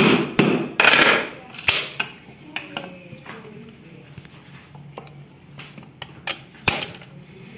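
Screwdriver prying and chipping at a coconut's hard shell: a quick run of sharp cracks and knocks, then lighter clicks and scraping, with one more sharp crack near the end. The work takes a lot of force.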